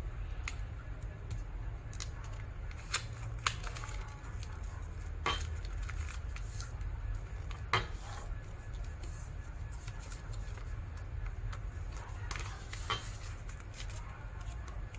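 Sheet of origami paper being folded and creased by hand on a table: scattered sharp taps and crackles as the folds are pressed down, over a steady low hum.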